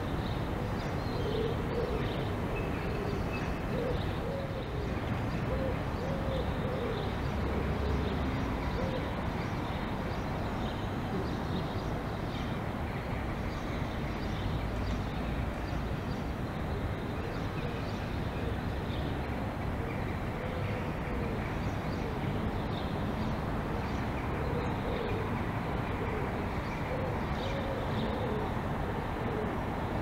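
City ambience: a steady hum of distant traffic, with a pigeon cooing in repeated phrases.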